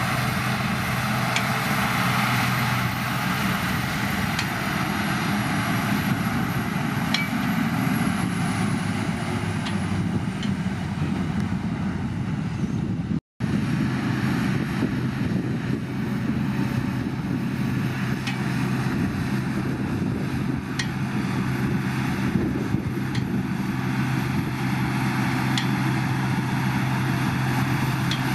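Heavy earthmoving machine's diesel engine running steadily under load. The sound breaks off for an instant about halfway through.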